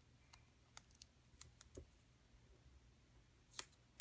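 Near silence with a few faint clicks and rustles of clear sticky tape being rolled into loops and a paper wheel being handled, the strongest click near the end.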